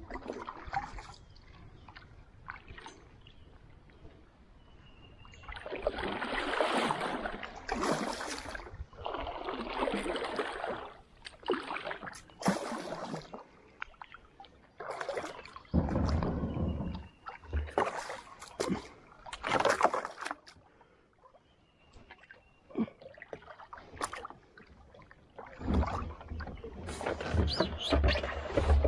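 Kayak paddle strokes splashing and sloshing through lake water, in uneven bursts every couple of seconds.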